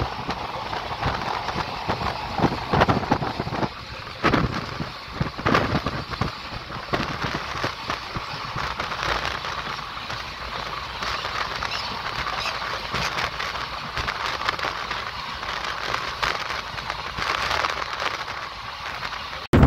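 Tungabhadra Express passenger train running at speed: its wheels clatter and rattle over the rails in a dense, irregular crackle, with a few louder knocks in the first few seconds.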